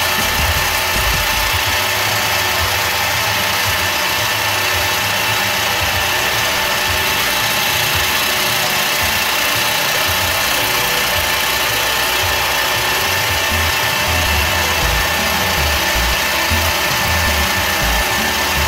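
Small benchtop metal lathe running steadily, its motor and gear train giving a constant whine with several held tones as the chuck spins a small brass workpiece.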